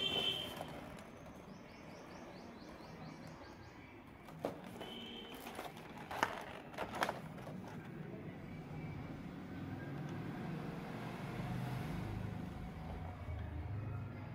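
A cardboard toy box being handled, with a few sharp knocks and rustles in the first half, over a steady low hum that grows louder in the second half.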